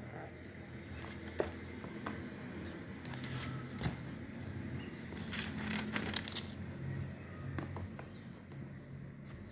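Desk sounds of studying: paper rustling and pen scratching, with scattered small clicks and taps, over a low steady hum.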